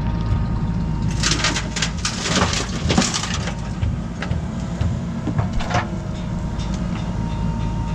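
JCB 3DX backhoe loader's diesel engine running steadily, while a bucketload of soil and stones clatters down into the tractor trolley from about one to three and a half seconds in. There is another short crunch of stones near six seconds.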